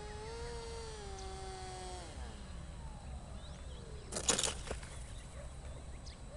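Remote-control model F-117 jet's electric motor whining at a steady pitch, then winding down in a falling glide as it comes in. About four seconds in there is a brief rush of scraping noise as the model touches down on the dirt field.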